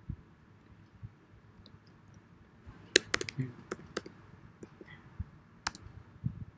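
Computer keyboard keystrokes: a quick run of about five sharp key clicks about three seconds in, then a single click near the end, over a faint quiet room.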